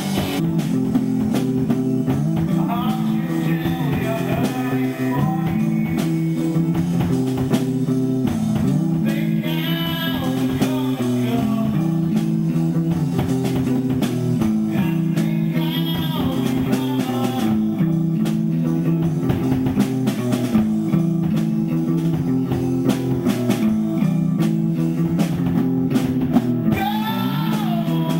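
Live band jam: electric guitar and drum kit playing a repeating low riff with steady cymbal and drum hits, and bending melodic phrases above it now and then.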